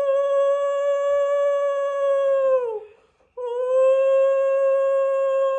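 Conch shell (shankha) blown in long, steady, held blasts, sounded as the idol of Kartik is set on the altar. The first blast ends past the middle with a falling pitch as the breath runs out, and after a short pause a second held blast begins.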